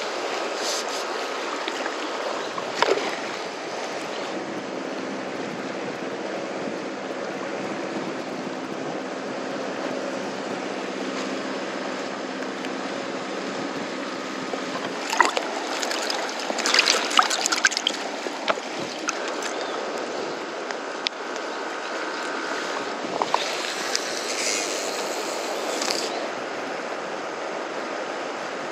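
Steady wash of the sea at the water's edge, broken by a few sharp knocks and rattles around the middle as a fish is handled on the concrete, and a brief brighter hiss with clicks near the end.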